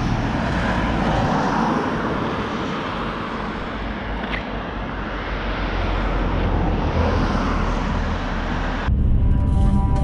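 Road traffic going by close at hand, a steady rushing rumble that swells and eases. About nine seconds in it cuts off abruptly and music starts.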